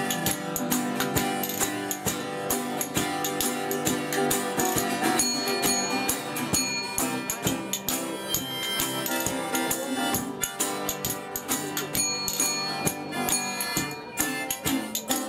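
Instrumental old-time blues played on spoons, resonator guitar, acoustic guitar and harmonica. The spoons keep a fast, steady clacking rhythm over the strummed and picked guitars, while the harmonica holds long notes.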